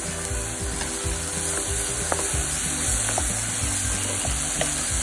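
Sliced onions, green chillies and capsicum sizzling steadily in hot oil in a pan as they are stirred, with a few faint taps of the spoon.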